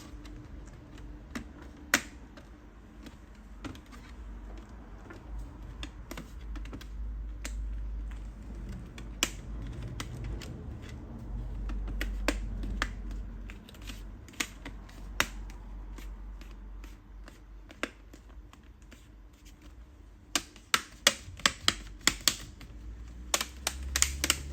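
Plastic screen bezel of a Lenovo IdeaPad 3 laptop being pressed back onto the lid, its clips snapping into place with sharp clicks. The clicks come scattered at first and then in a quick run near the end, over low rumble from handling.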